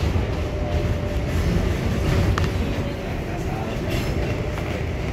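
New York City Subway 7 train heard from inside the car as it runs along elevated track: a steady rumble of wheels on rails, with a sharp click a little over two seconds in and a brief high whine near the end.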